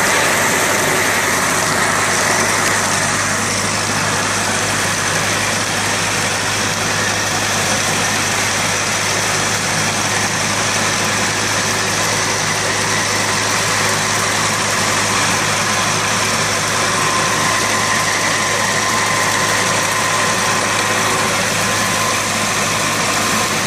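Farmall tractor engine running steadily while it powers an antique burr mill grinding soybeans, the engine and the mill's grinding making one unbroken mechanical din with a constant low hum.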